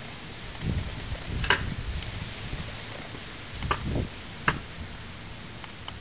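Skateboard wheels rolling and rumbling on concrete, with three sharp clacks of the board: one a second and a half in, two more near the middle.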